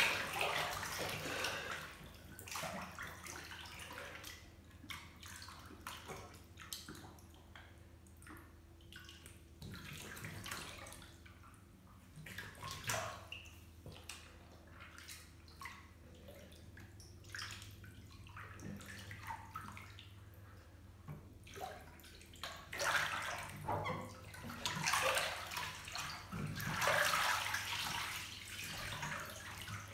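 Water sloshing and splashing in a filled bathtub as a person moves about in it fully clothed, with quieter stretches of drips and small trickles between. The splashing picks up again near the end as he turns and rises in the water.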